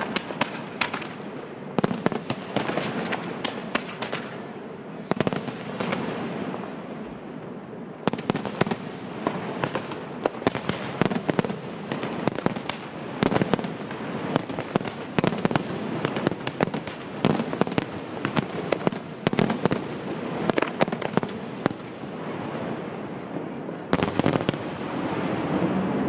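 Aerial fireworks shells bursting in quick succession: many sharp bangs over a continuous rumble. There is a short lull about six seconds in, then the bursts come thick again.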